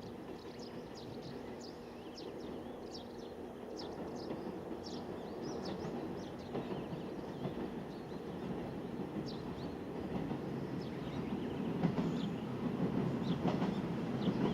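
KiHa 185 series diesel railcar running along the line, its engine and wheel rumble growing steadily louder as it approaches. Short high chirps from birds sound throughout.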